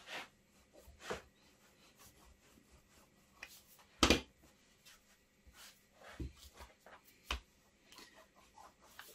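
Rolling pin working pastry dough on a plastic chopping board: faint rubbing and a few soft knocks as the pin and hands meet the board, the loudest about four seconds in.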